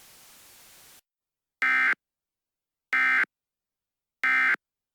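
Emergency Alert System end-of-message signal: three identical short buzzy digital data bursts about 1.3 seconds apart, marking the close of the alert broadcast.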